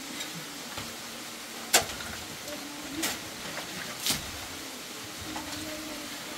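Hand digging tools, a hoe or pick and shovels, striking stony earth: three sharp hits about a second apart, the first the loudest, over a low background hiss.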